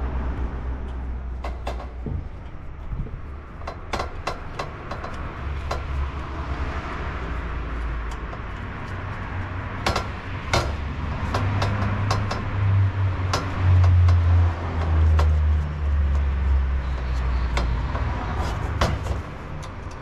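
Scattered sharp clicks and light knocks of hand tools and metal fittings as an automotive air-conditioning expansion valve is fitted and tightened onto the aluminium evaporator, over a low rumble that swells in the second half.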